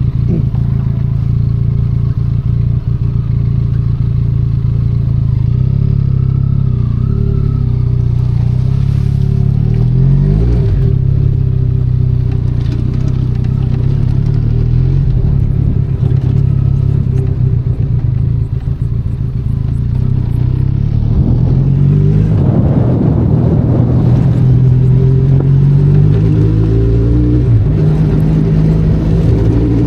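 Benelli Leoncino 500 Trail's parallel-twin engine pulling the motorcycle along an off-road trail. The engine note shifts in pitch about a third of the way in, then rises and gets louder about two-thirds of the way through.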